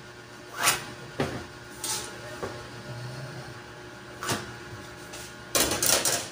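Metal drafting rulers handled on a wooden cutting table: a few sharp knocks and scrapes, then a longer, louder clatter near the end as the long curved metal ruler is put down beside the metal L-square.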